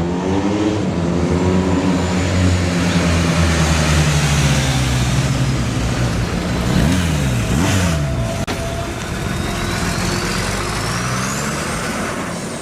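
A motor vehicle engine running steadily, its pitch slowly sinking over the first several seconds, with a quick rise and fall in engine pitch about seven to eight seconds in.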